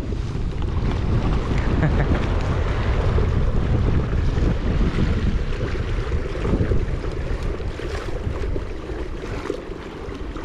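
Wind buffeting the microphone in a low rumble, with water lapping and splashing against the hull of a kayak moving across choppy lake water; the wind eases off somewhat near the end.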